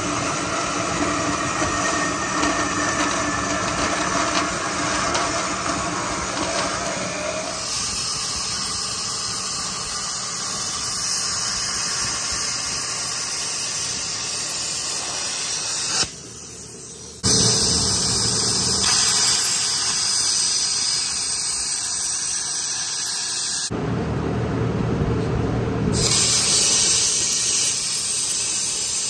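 Power tools working steel in several short clips: a whine over hissing for the first seven seconds or so, then steady loud hissing. The sound breaks off abruptly at about sixteen seconds and again near twenty-four seconds.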